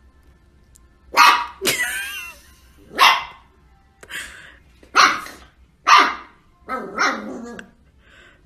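A dog barking, single barks spaced roughly a second apart, with a brief wavering high-pitched sound just after the second bark.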